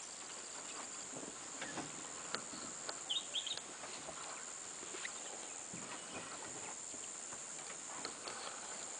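Faint forest ambience: a steady high hiss with scattered soft crackles and snaps, and a few short bird chirps about three seconds in.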